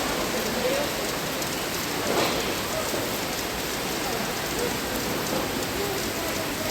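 Heavy rain pouring steadily, with one brief louder moment about two seconds in.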